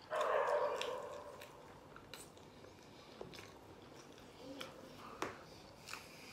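A loud slurp of spaghetti strands sucked into the mouth, lasting about a second, followed by quieter chewing with a few scattered light clicks.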